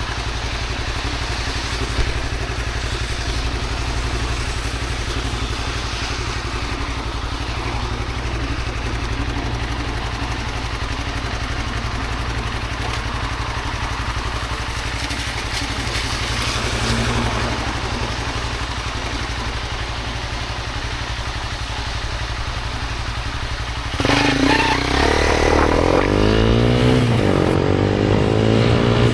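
Steady hiss of rain over a low engine hum. About 24 s in it abruptly gets louder, and a motorbike passes close by with a sweeping, changing tone.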